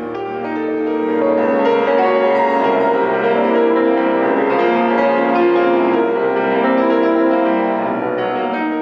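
Grand piano playing classical music with a symphony orchestra, many notes layered and held. The music swells up over the first second and eases off near the end.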